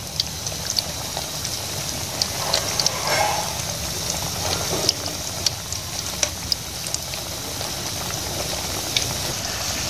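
Batter-coated potato slices deep-frying in hot ghee in a metal kadhai, nearly cooked: a steady bubbling sizzle. Short light clicks and scrapes come from a wire-mesh spider strainer knocking the pan as the tikkis are stirred.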